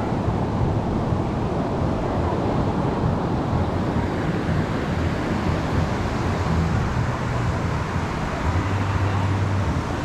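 Steady rush of ocean surf washing onto a sandy beach, with wind buffeting the microphone and a low hum underneath that swells briefly near the end.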